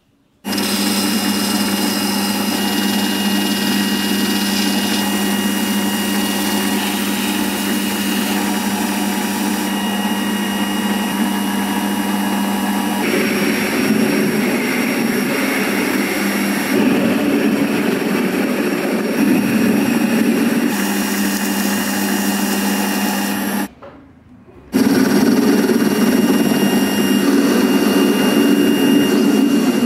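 Metal lathe running and turning a small metal pin with a carbide-insert cutting tool: a steady machine hum with a high whine over it. It starts abruptly about half a second in, grows noisier partway through, and drops out for about a second near the end before going on.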